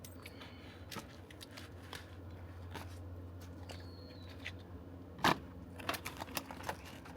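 Food being cut and handled on a cutting board: scattered light clicks and taps of a knife and handling, with one sharper knock about five seconds in.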